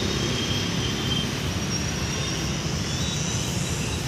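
Steady low outdoor rumble of road traffic, with no distinct single event.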